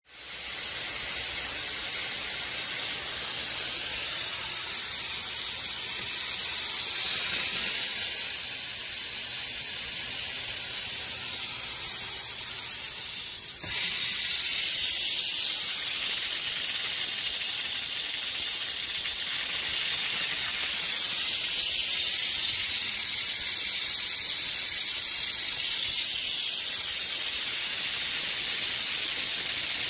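Steady hiss of high-pressure steam jetting from the two spray guns of a STEAMJET FX1-E double-hose steam car-wash machine, with a short break about halfway through.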